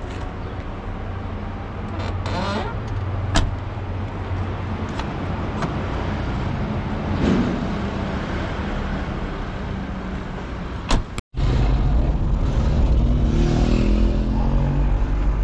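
Car engine running steadily, with a sharp knock about three seconds in. After a brief dropout near the end, the car is driving in traffic, heard from inside the cabin, its engine note rising as it pulls along.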